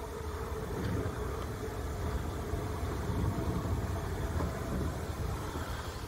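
Steam locomotive 34053 Sir Keith Park, a Bulleid Battle of Britain class Pacific, giving off a steady low rumble with no distinct exhaust beats.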